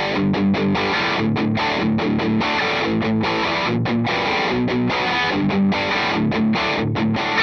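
Electric guitar played with heavy distortion: a fast, choppy picked riff of low notes, broken by many short stops.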